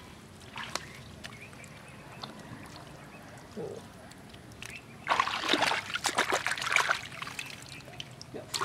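Hands splashing and sloshing in shallow muddy water while digging out a mud hole, with a loud burst of splashing about five seconds in that lasts around two seconds, and a shorter splash near the end.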